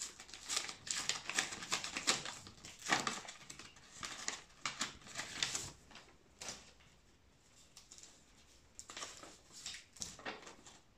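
Sheets of paper and card being handled, rustling and crinkling in a quick run of short strokes, which thins out past the middle and picks up again briefly near the end.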